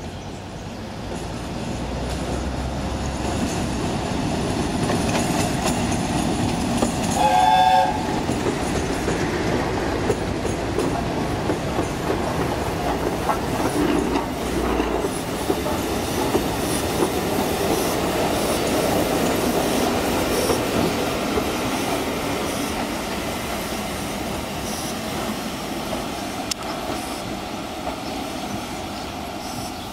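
A train with a Class 56 diesel and the steam locomotive 60163 Tornado rolling slowly past: engine running, wheels clattering over the rail joints and points. A short whistle blast sounds about seven seconds in.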